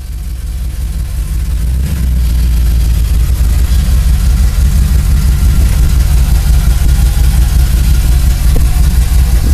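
Dodge pickup truck's engine running steadily with a deep rumble, fading in over the first two to three seconds.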